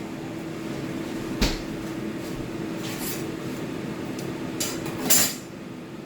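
Kitchen clatter of utensils knocking against pots and dishes: a sharp knock about one and a half seconds in, a few faint ticks, and a louder clatter near the end, over a steady low hum.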